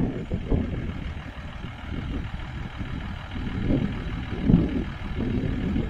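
A 4x4 jeep's engine running under load as it crawls up a steep, rocky off-road climb, swelling briefly a couple of times about four seconds in.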